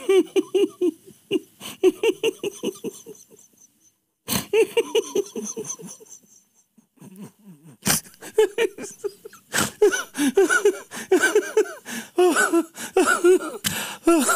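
A man laughing helplessly in fits: rapid runs of short ha-ha pulses, about five a second, broken by breaths, easing off about six seconds in and building again from about eight seconds.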